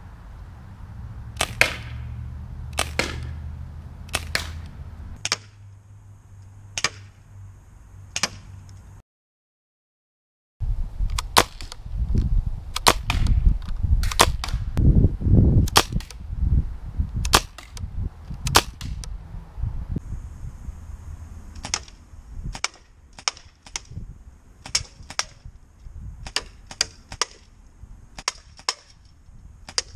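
Daisy Model 74 CO2 BB rifle firing shot after shot, each a sharp pop. The shots come about a second apart at first and quicken to about two a second near the end, with a brief dead gap about nine seconds in.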